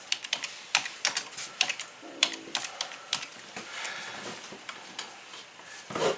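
Typing on a computer keyboard: a quick run of keystrokes that thins out to a few scattered clicks after about three seconds.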